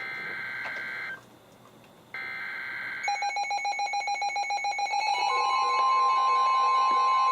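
NOAA Weather Radio EAS alert: two one-second bursts of the SAME digital header, a warbling data tone, separated by a pause. About 3 s in, a weather radio's rapidly pulsing alert beep starts. Around 5 s it is joined by the steady 1050 Hz warning alarm tone, which marks a flood warning coming in.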